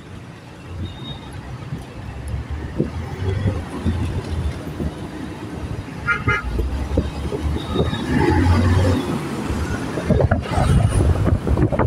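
Road traffic and engine rumble heard from a moving vehicle in city traffic, with a short vehicle horn toot about six seconds in.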